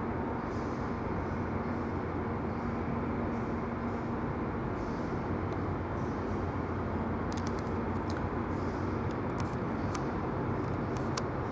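Steady low mechanical rumble with a faint held hum, and a few faint clicks in the second half.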